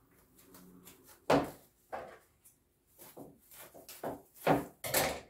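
Plastic bag rustling and crinkling in several short bursts while grape leaves are handled and packed into it.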